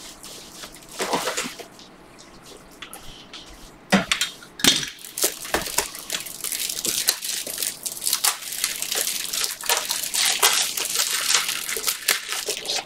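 Hands handling trading cards with plastic card sleeves and top loaders on a table: light rustling and clicking of plastic, sparse at first, then busy and continuous from about four seconds in.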